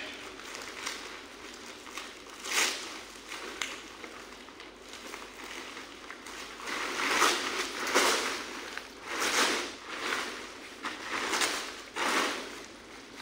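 Plastic sheeting and foam packing rustling and crinkling as they are pulled and torn off, in irregular bursts that come thicker in the second half.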